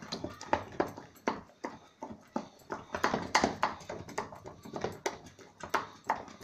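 A spoon beating and stirring thick cream in a steel pot, knocking and scraping against the metal at about three strokes a second in an uneven rhythm. The cream has stiffened as it turns to butter, so each stroke drags against the pot.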